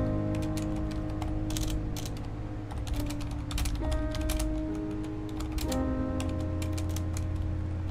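Typing on a Corsair mechanical keyboard: irregular runs of sharp key clicks, with background music of sustained synth tones underneath.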